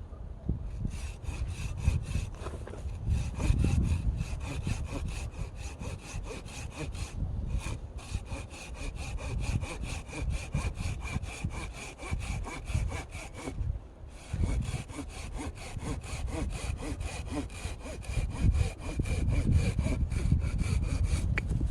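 Hand saw cutting through firewood in quick, even back-and-forth strokes, pausing briefly twice, about seven and fourteen seconds in.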